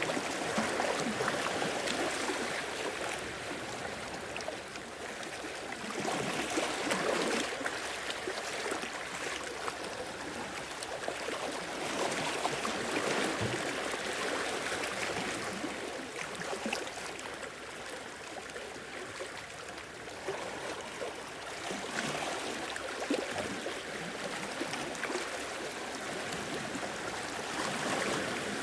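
Sea waves washing in and draining back, the sound swelling and easing every few seconds.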